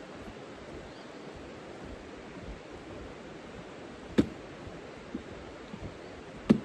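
Steady rushing outdoor noise, with two sharp taps, one about four seconds in and a louder one near the end.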